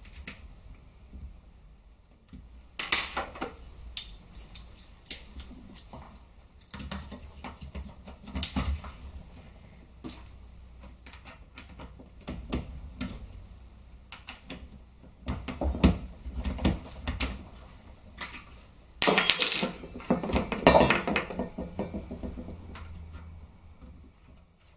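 Screws and small metal parts of an SRC G36K airsoft rifle clinking and tapping as it is taken apart: scattered clicks and knocks, with a louder run of clattering about nineteen seconds in.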